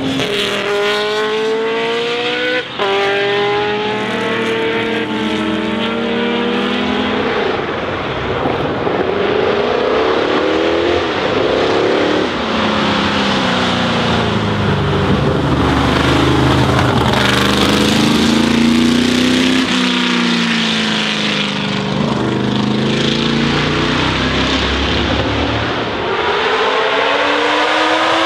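Racing car engines at high revs: one accelerates hard and shifts up with a sudden drop in pitch about three seconds in, then the engine note keeps falling and rising as cars brake, pass and accelerate away.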